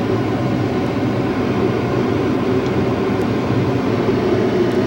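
Automatic car wash running, heard from inside the car during the pre-soak: a steady mechanical hum with an even hiss of spray.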